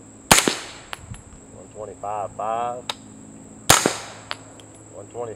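Two suppressed gunshots, about three and a half seconds apart, from a 9mm carbine fitted with a Liberty Mystic X silencer firing 147-grain subsonic ammunition; each is a sharp report with a short ringing tail, metered at about 124 to 125 dB.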